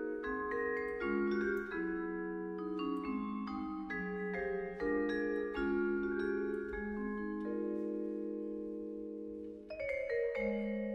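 Solo vibraphone played with mallets: a slow melodic line of struck, long-ringing metal-bar notes that overlap one another. Near the end the sound thins out briefly and a new chord is struck about ten seconds in.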